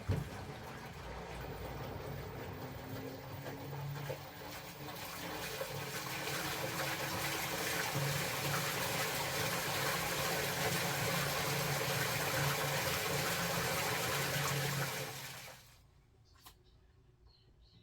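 Water rushing and splashing into the tub of an LG Black Label Plus top-loading washing machine, with a low hum under it. It gets louder a few seconds in, cuts off suddenly near the end, and a single click follows.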